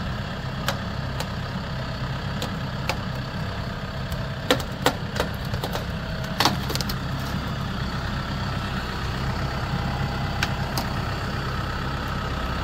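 Engine running steadily, with scattered sharp knocks and metallic clanks, a loud cluster of them about four to six and a half seconds in.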